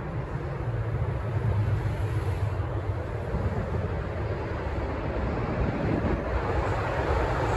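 Steady low rumble of a vehicle running, with a noisy hiss over it and no distinct strokes or tones.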